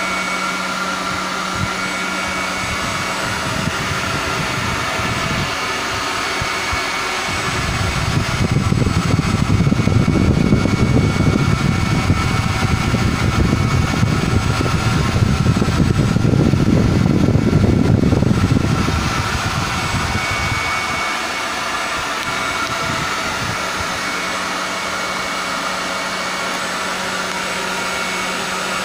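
Electric ducted fans of a Freewing F-4 Phantom II RC jet model running steadily, a whirring rush with a thin steady whine. From about seven to nineteen seconds a heavier, deeper rush of air swells over it, then settles back.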